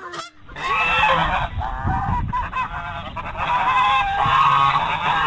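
Many birds calling over one another in a dense, continuous chorus of overlapping calls, starting suddenly about half a second in.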